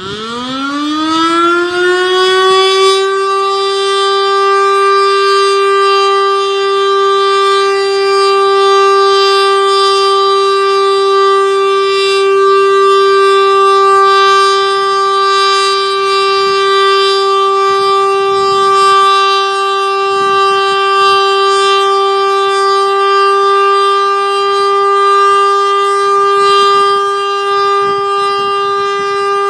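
American Signal Corporation T-112 outdoor warning siren winding up from a low pitch to full speed over about three seconds, then holding one steady tone: a steady alert signal sounded as a routine siren test.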